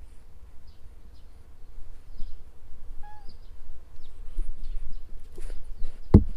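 Cats moving about right at a small action camera: low rumble, scattered faint high chirps, and one short pitched call about three seconds in. Near the end, a loud thump as a cat bumps into the camera.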